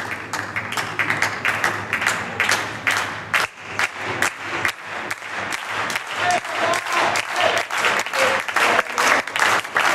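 Table-tennis balls clicking sharply and irregularly, several a second, as they strike paddles and tables in rallies at other tables, echoing in a large hall, with a faint murmur of voices.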